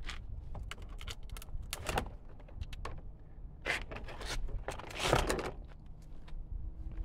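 A claw hammer knocking and prying at an old eaves protector tray along the roof edge, with clicks, clatters and a few longer scraping, rattling spells as the strip is worked loose and lifted off, the loudest about five seconds in.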